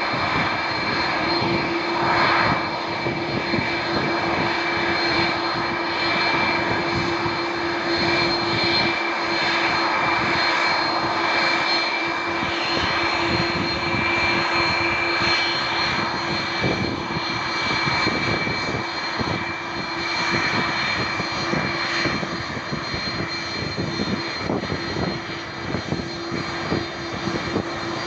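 Airbus A330-200 airliner's twin turbofan jet engines running, a loud, steady rushing noise with several held whining tones that keep the same pitch.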